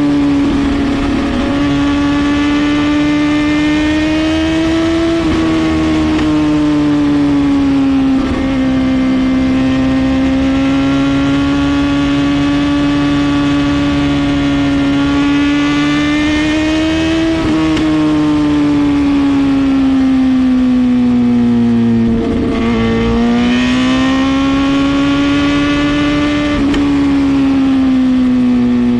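Suzuki GSX-R750's inline-four engine through a full Brock's exhaust, running at high, fairly steady revs under way. The pitch creeps slowly up and then drops sharply about five times.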